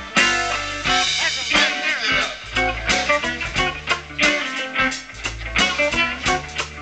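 Live blues band playing a funky instrumental intro: mandolin, guitar, fiddle, bass guitar and drums.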